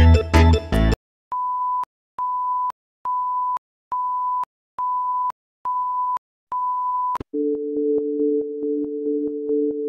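Electronic beep tones: the music stops, then seven short identical beeps, a bit under one a second. Near the end they give way to a steady two-note electronic tone with faint regular ticks.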